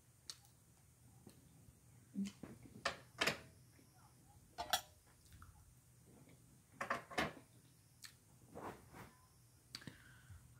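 Eating sounds while bread is used to mop up a plate: chewing and mouth clicks, with a scattering of short knocks and clicks from the plate being handled.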